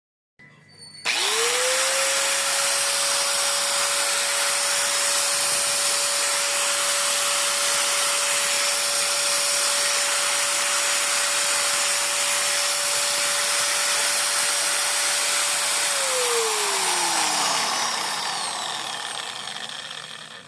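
Dongcheng 710 W angle grinder switched on about a second in, its motor whining up to speed and then running freely at a steady pitch. Near the end it is switched off and winds down, the whine falling in pitch as it fades.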